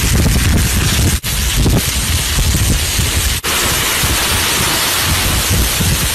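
Squid sizzling on an oiled, fire-heated stone slab, a loud, even hiss, with wind rumbling on the microphone. The sound briefly cuts out twice.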